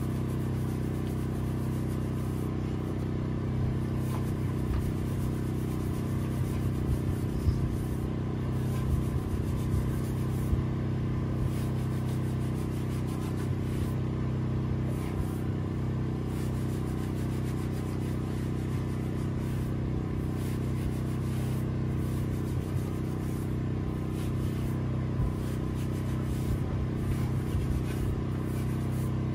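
A motor running steadily, giving an unchanging low hum of several tones, with a few light knocks and scrapes scattered through it.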